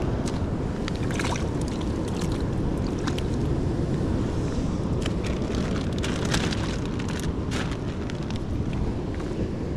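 Wind buffeting the microphone over the steady wash of surf on a rocky shore, with a few short crackles scattered through, a cluster around the middle.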